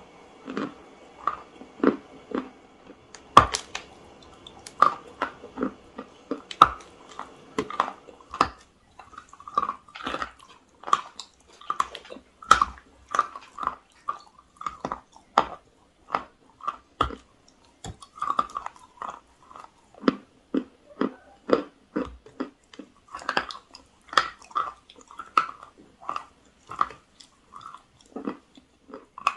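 Crunchy biting and chewing of a lump of chalk and clay: a steady run of crisp crunches, about two a second.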